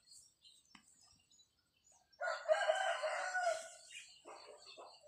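A rooster crowing once, a call of about a second and a half starting about two seconds in, followed by a few shorter, fainter calls.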